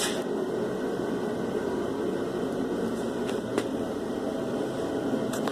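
Harbor Freight 17-inch 16-speed drill press running steadily with a constant motor hum, with a few faint ticks.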